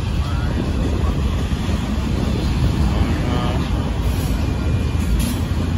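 Freight train of autorack cars rolling past a grade crossing: a steady rumble of wheels on rail, with one sharp click about five seconds in.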